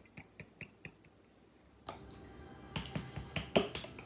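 Thick chili sauce being poured out of its bottle into a mixing bowl. A quick run of small clicks comes first; from about two seconds in, louder knocks and clinks follow as the sauce is worked out of the bottle.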